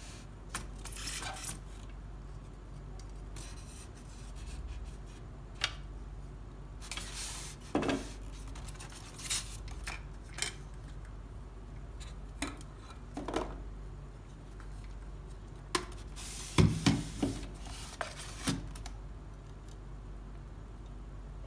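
Telescope kit parts being handled and lifted out of a moulded polystyrene foam tray: scattered rubbing and scraping against the foam, with clicks and knocks of hard parts. There is a cluster of louder knocks about three-quarters of the way through, over a steady low hum.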